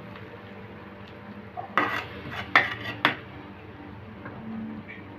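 Spatula stirring a pan of yardlong bean curry, clacking sharply against the pan four times in quick succession about two seconds in, with quieter stirring around it.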